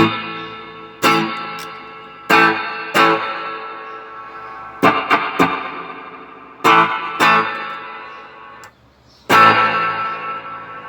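Electric guitar chords struck every second or so through an Electro-Harmonix Holy Grail Nano reverb pedal, each chord ringing out and fading slowly. There is a brief quiet gap near the end, then the last chord. The pedal is working again after repair.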